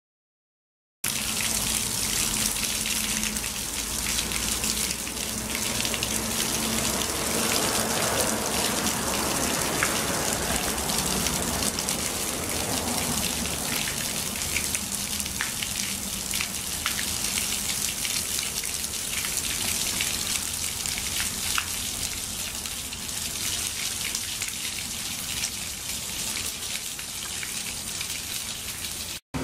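Water pouring from a shell-shaped metal spout into a stone fountain basin, a steady splashing that starts about a second in.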